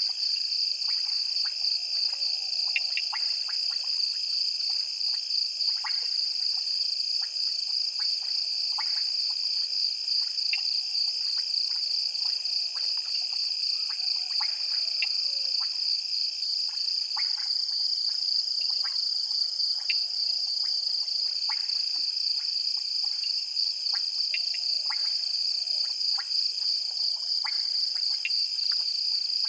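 Chorus of frogs and insects: a steady high-pitched trill, with many short clicks and chirps scattered through it.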